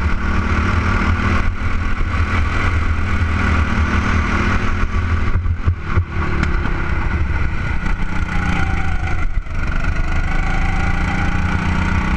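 Go-kart engine running hard, heard from a camera mounted on the kart itself. The sound dips briefly about halfway through and again near the end.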